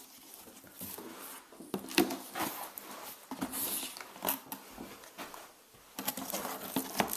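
Cardboard box being opened and its packaging handled: irregular knocks and clicks of cardboard with bursts of rustling, the longest about halfway through.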